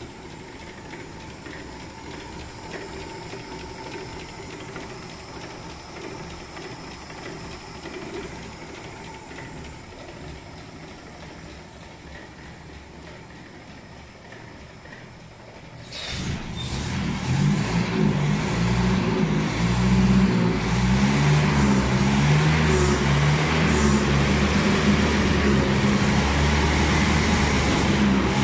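Citroën DS ID19 four-cylinder engine, fitted in a Traction 11BL, running quietly at idle, then speeded up by hand at the throttle about two-thirds of the way in; the revs climb over a second or two and hold at a much louder, steady fast running.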